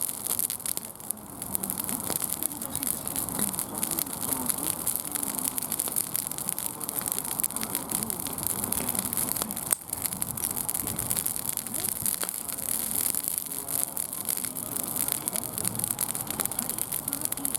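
Wood campfire crackling and hissing, a steady stream of small snaps and pops.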